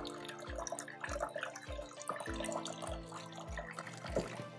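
Thin stream of water from a kitchen faucet trickling and splashing into a small glass in a stainless steel sink. Background music with a steady beat runs underneath.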